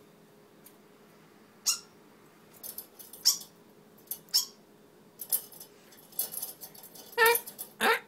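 A dark songbird calling with short, sharp, high squawks about once a second, then two louder, lower squawks near the end.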